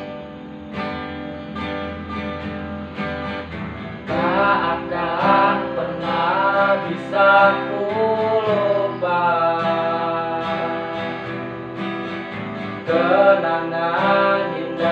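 Instrumental song intro: guitar accompaniment, with a gliding melody line coming in about four seconds in.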